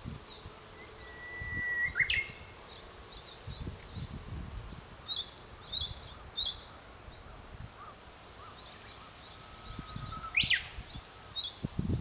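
Small songbirds calling: many short high chirps, and twice a longer whistled note that ends in a quick flourish, about two seconds in and again near ten seconds. Faint low rumbling underneath.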